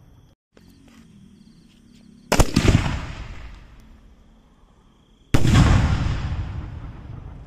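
A 4-inch aerial display shell: a sharp boom as it is fired from the mortar tube, then about three seconds later a second loud bang as the shell bursts overhead. Each bang echoes away over a couple of seconds.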